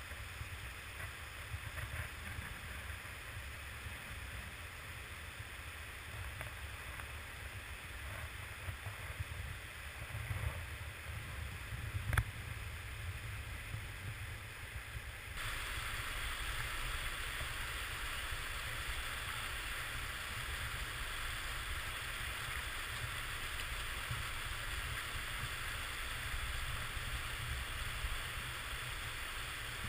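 The Virgin River rushing over rocks in a slot canyon: a steady wash of water noise over a low rumble. There is a single sharp knock a little before halfway, and the water gets louder and brighter about halfway through.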